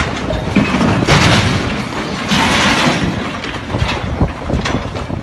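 An overloaded crane toppling over with the boat it was lifting: deep rumbling and heavy crashing, with two long rushes of noise about a second and two and a half seconds in.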